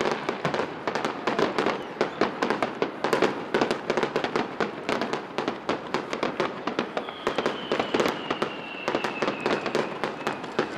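Fireworks finale: aerial shells bursting in a dense barrage, several sharp bangs a second. A faint high whistle glides slowly down in pitch about seven seconds in.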